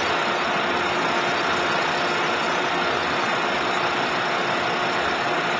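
Plug-flow pneumatic conveying system running: a steady rush of air and machine noise with a faint constant hum.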